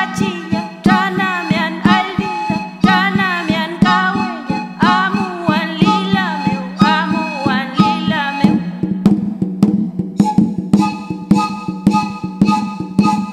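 Mapuche harvest-dance song: a voice sings a verse in Mapudungun over a steady low drone and an even percussion beat. About nine seconds in the singing stops and the drone and beat carry on alone.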